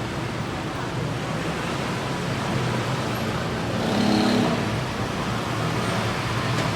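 Steady city road-traffic noise, with one louder vehicle going by about four seconds in.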